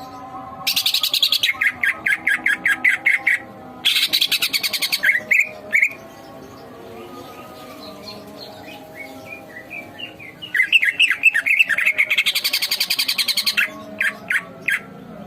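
Javan kingfisher (tengkek buto) calling in full agitation: three loud runs of rapid, harsh repeated notes, about five a second, with a few single notes near the end.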